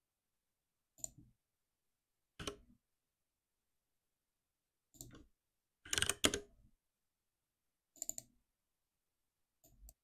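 Computer keyboard keystrokes and mouse clicks in short separate bursts with silence between, the longest a quick run of keystrokes about six seconds in.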